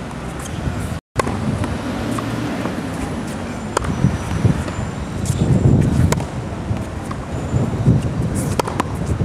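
Tennis ball struck by racket in a volley drill on a hard court: a few sharp pops a second or more apart over steady outdoor background noise. The sound drops out for an instant about a second in.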